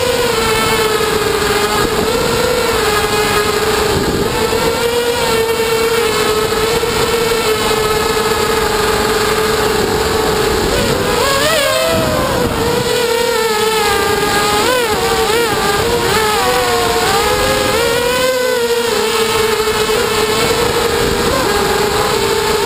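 QAV250 racing quadcopter's four brushless motors and propellers whining steadily, the pitch dipping and rising with throttle changes several times in the middle, heard through the onboard GoPro's microphone with wind noise underneath.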